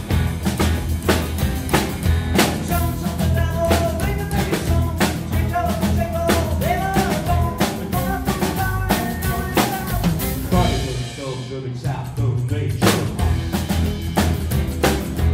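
A rockabilly band playing: upright bass, acoustic and electric guitars and a drum kit keeping a steady beat. About eleven and a half seconds in the drums drop out for about a second, then the full band comes back in.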